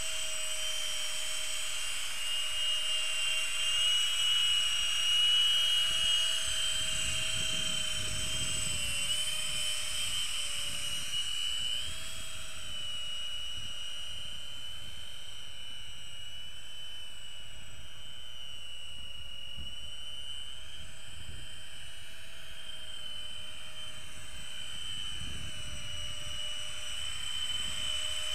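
Electric ducted-fan drone flying overhead: a steady high whine from its fans whose pitch wavers slightly as the throttle changes. It grows a little louder about five seconds in.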